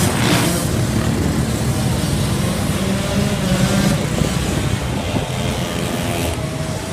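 Motorcycles and quad bikes running at low speed as they pass one after another, a steady mix of engines.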